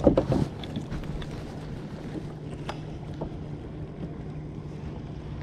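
Wind noise on the microphone with a faint steady low hum underneath, and a few small clicks and knocks from handling gear on the kayak.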